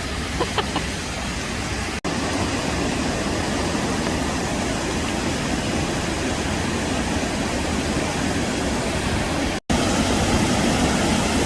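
Waterfall rushing: a steady, even hiss of falling water. It breaks off twice for an instant, about two seconds in and near the end.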